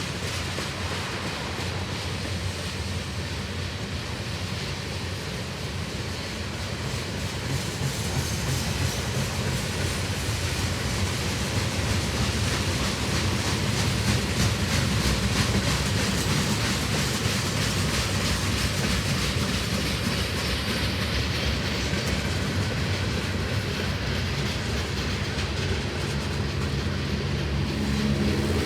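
Long freight train's cars rolling past in a steady rush, steel wheels clicking over the rails. A faint low hum comes in near the end.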